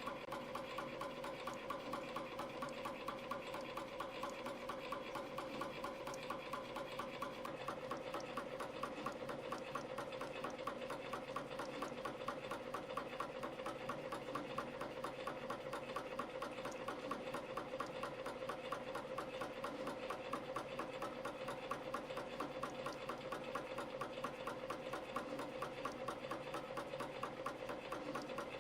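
YHM CF-series CNC spring coiling machine running steadily, forming tiny springs from 0.2 mm wire at about 300 a minute. It makes a fast, even mechanical clatter over a steady hum.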